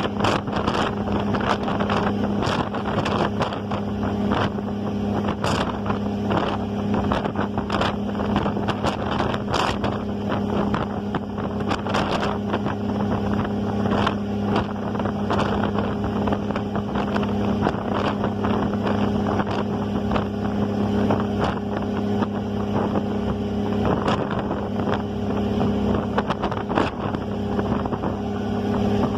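Ferry engine running with a steady low drone, with wind buffeting the microphone in frequent short gusts.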